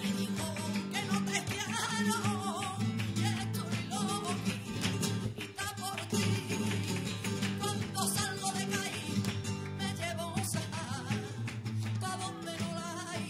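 Live flamenco music: a flamenco guitar playing with sharp strummed strikes, under a singer's wavering, ornamented vocal line.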